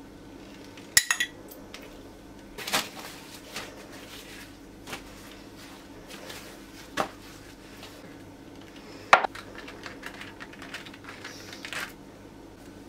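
Scattered sharp clinks and knocks of kitchen utensils, such as a metal spoon and glass, about seven in all; the loudest come about a second in, with a brief ring, and about nine seconds in. A faint steady hum lies underneath.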